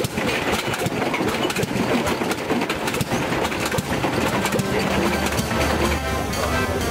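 Stone crusher at work: a dense, irregular clatter of machinery and crunching stone. About five and a half seconds in, music with held notes comes in under it.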